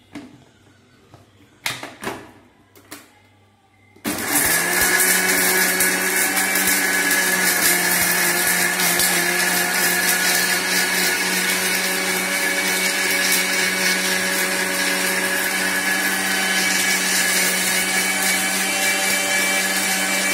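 A few knocks as the mixer jar and lid are handled, then about four seconds in an electric mixer grinder starts and runs steadily at high speed, grinding mint, green chillies and spices with a little water into a wet paste.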